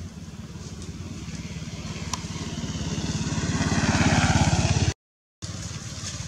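An engine running with a low, even beat, growing steadily louder over about four seconds. It cuts off abruptly about five seconds in, returns briefly, and cuts off again.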